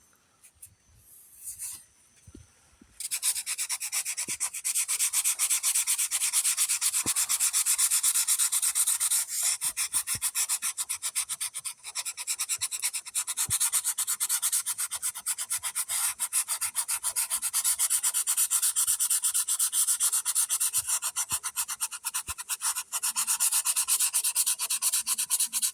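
Hand sanding with 80-grit paper on a sanding block, scrubbing fast back and forth over a fiberglass boat's glossy gelcoat. It starts about three seconds in and goes on steadily, scuffing the shine so new gelcoat will stick.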